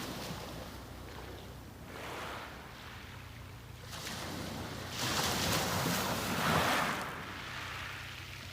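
Sea waves breaking and washing up a beach, rising and falling in swells; the biggest breaks about five seconds in and washes for about two seconds.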